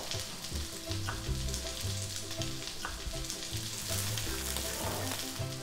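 Lamb fat trimmings sizzling steadily in a hot frying pan, with stock poured into the pan about four seconds in.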